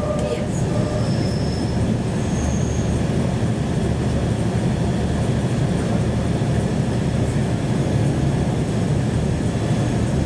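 Tram running on its rails, heard from inside the carriage: a steady rumble, with a few brief high wheel squeals in the first three seconds.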